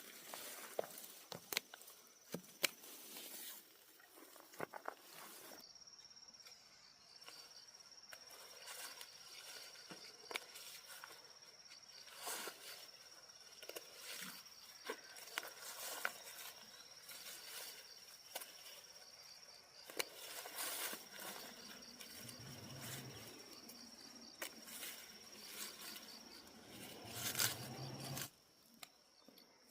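A steady, high-pitched insect chirp with a fine pulsing rhythm sets in a few seconds in. Over it come scattered sharp clicks and rustles, and there are two brief low sounds near the end.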